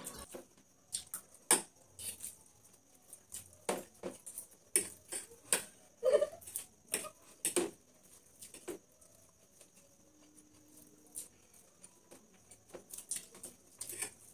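Noodles being eaten fast, close to a clip-on microphone: irregular wet clicks and smacks of chewing, lip-smacking and slurping chowmein.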